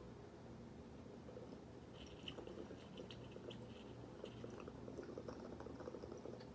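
Faint crackling and bubbling from a water-filled glass nectar collector as a hit is drawn through it, a run of small pops starting about two seconds in and going on to near the end.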